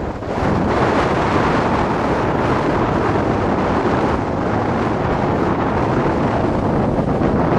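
Wind blowing across the camera microphone, a loud steady rush, with sea surf washing against the rocks underneath.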